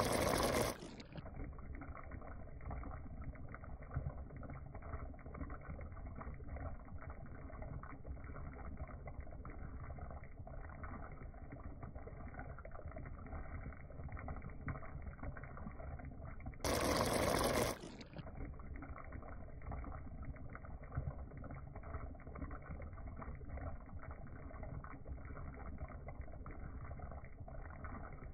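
Mahi mahi in coconut milk sauce simmering in the pan: a steady low bubbling with small pops. Twice, near the start and about halfway through, a louder rush of noise cuts in for about a second.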